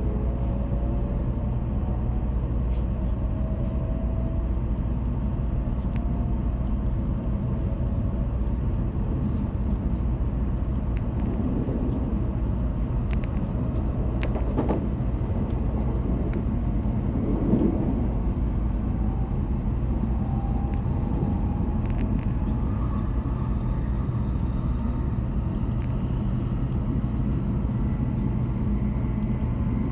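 Shinkansen cabin noise while the train runs: a steady low rumble, with a faint motor whine that glides down in pitch early on and rises again later, and scattered light clicks.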